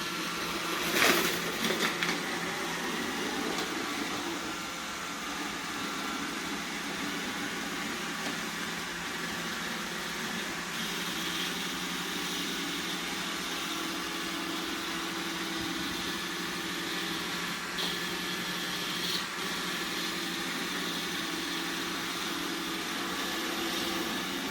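iRobot Roomba 960 robot vacuum running, a steady motor and brush whir, with one louder knock about a second in.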